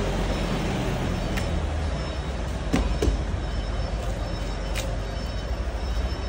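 Steady rumble of vehicle and yard noise, with a few sharp knocks as a plywood crate on a pallet is handled, loudest as a quick pair about three seconds in.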